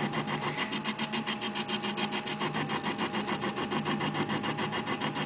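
Taig benchtop lathe running while a carbide insert takes a dry cut in aluminum, a steady motor hum under a fast, even pulsing. This is a truing-up cut on stock that was not set running true in the chuck.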